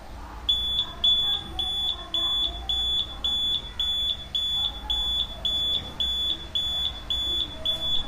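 A 3–24 V buzzer beeping in a steady, high-pitched pattern of about two beeps a second, starting about half a second in. The solar wall light's PIR motion sensor has detected movement and set off the alarm.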